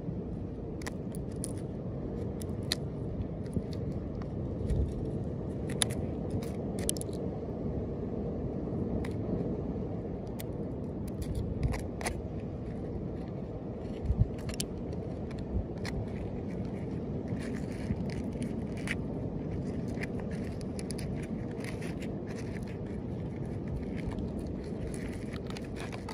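A knife blade scraping moss and algae off a turtle's shell: irregular short scratches and clicks, over a steady low rumbling background.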